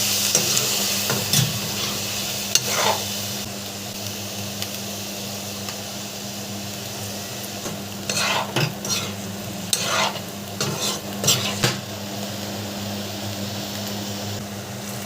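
Food frying and sizzling in a pan while a spoon stirs it, with several short scrapes of the spoon against the pan, most of them past the middle. A steady low hum runs underneath.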